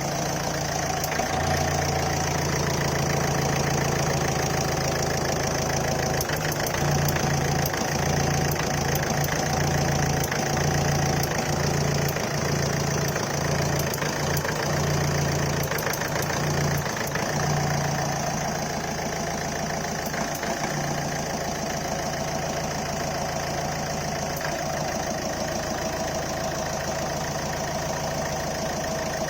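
Ford Figo 1.4 TDCi four-cylinder Duratorq diesel engine idling, with faint, irregular static-like ticking over the engine sound. The owner says this ticking comes with occasional misfires and vanishes once the engine reaches normal temperature. The deep drone eases off about eighteen seconds in.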